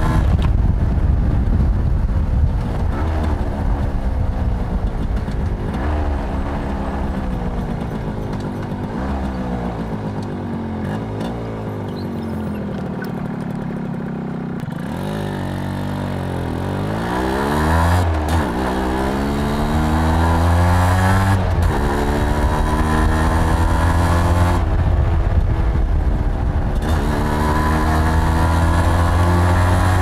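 Suzuki AX100's small single-cylinder two-stroke engine pulling the motorcycle along city streets, its pitch climbing under throttle and dropping back at each gear change. It eases off to a lower, quieter note around the middle, then accelerates again through several gears.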